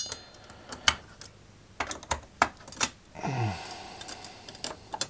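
Small metal screws clicking and tapping against the metal heatsink and amplifier case as they are handled and dropped loosely into their tapped holes, with irregular light clicks and a brief scrape a little after three seconds as the heatsink is shifted.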